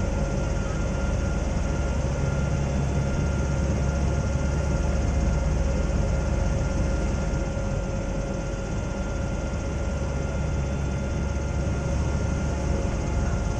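Steady drone of a Zeppelin NT airship's piston engines and propellers, heard inside the gondola cabin: a deep, even rumble with a constant hum over it.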